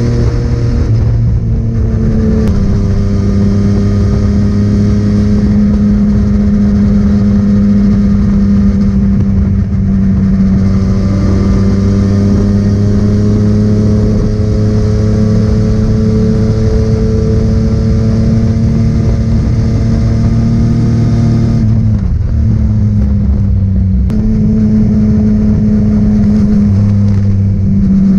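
Yamaha three-cylinder motorcycle engine running on the road. Its note steps down a few seconds in and again about two-thirds of the way through, as gears change, and climbs slowly in between as the bike gathers speed.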